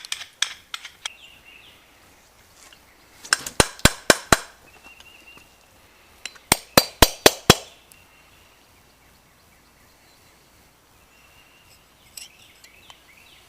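Metal-on-metal hammer taps in two quick bursts of about six strikes each, a few seconds apart, with lighter clinks before them, as work goes on at a trailer wheel hub's bearing races.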